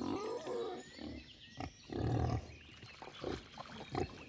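Wild boar calling: a higher, wavering call at the start, then a run of short, low grunts at irregular intervals.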